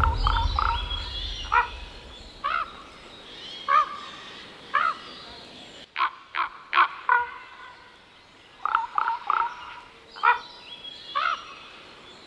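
Birds calling: short, harsh calls at irregular intervals, some in quick runs of two to four, over a faint outdoor background.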